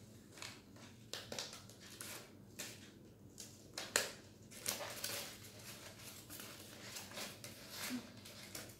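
Scissors cutting through a sheet of paper in a series of short, irregular snips, the loudest about four seconds in.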